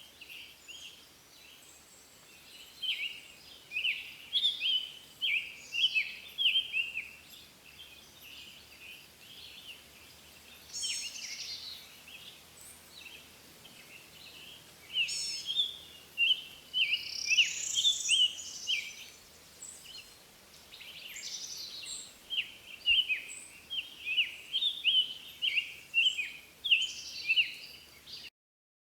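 Birds chirping and singing: quick runs of short high chirps, with a few longer trilled phrases in between. The sound cuts off suddenly near the end.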